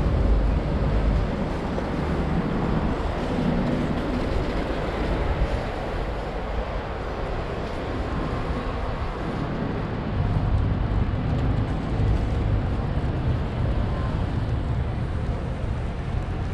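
Busy city street: traffic engines running and passing, with wind buffeting the microphone as a low rumble.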